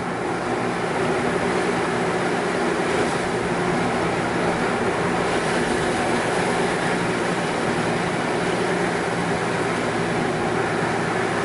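Steady driving noise from inside a moving pickup truck: tyres hissing on wet pavement over a low engine hum.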